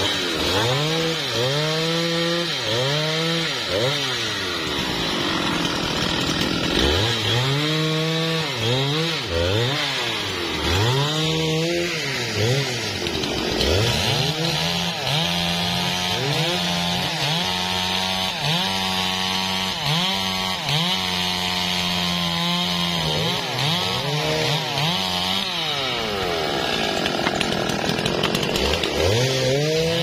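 Two-stroke chainsaw cutting through teak logs. It revs up into the cut and drops back again and again, with a longer spell held at high revs about halfway through.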